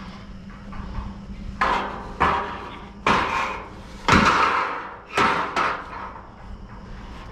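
Perforated metal scaffold planks being shifted and set down, giving about six sharp bangs and knocks, each ringing briefly.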